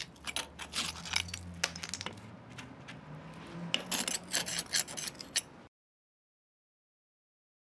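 A flat steel scraper picking and scraping loose mortar out of cracked joints in a brick wall: a quick, irregular run of sharp scrapes and clinks that cuts off suddenly a little over five seconds in.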